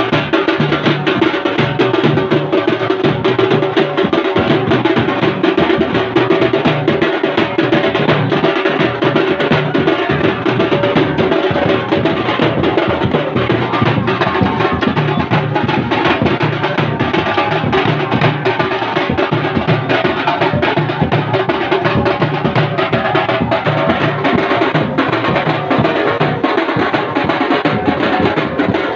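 Dhol drums beaten loudly in a fast, continuous processional rhythm, with dense sharp strokes and no breaks.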